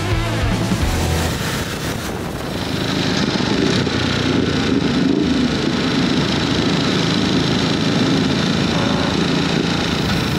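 Ducati motorcycle engine and exhaust running steadily under way, picked up close to the exhaust silencer, with other motorcycles riding alongside.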